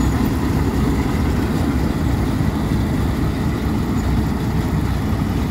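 The old 510 combine harvester's engine runs steadily with a heavy low drone as the machine goes into a crop of oats to harvest it.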